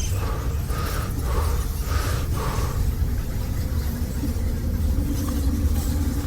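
A steady low rumble, with short repeated chirps about twice a second in the first half and a faint steady tone starting about two-thirds of the way in.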